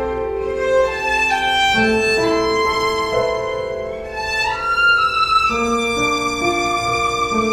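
Background music: a violin melody of sustained notes over a soft accompaniment.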